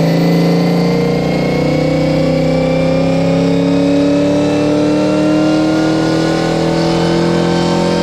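Chrysler 300's 5.7 Hemi V8 under full load on a chassis dyno, exhaling through long-tube headers and catless mid-pipes. Its pitch climbs slowly and steadily as the revs build through the pull.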